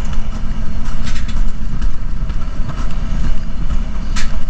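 Mountain coaster cart running fast down its steel rail track: a steady heavy rumble with wind rushing over the microphone, broken by a few short sharp rattles about a second in and a louder one near the end.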